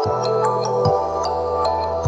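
Background music with sustained synth chords over held bass notes and a light ticking beat; the chord changes about once a second.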